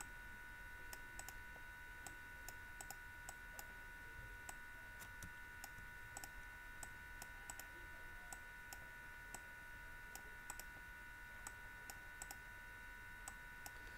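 Faint, irregular clicks of a computer mouse, one to a few a second, over a steady high-pitched electrical whine.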